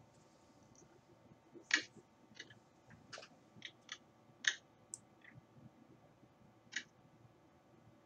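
Faint computer mouse clicks, about nine short separate ones at irregular intervals, the sharpest about two seconds in and near the middle, as a document is scrolled on screen.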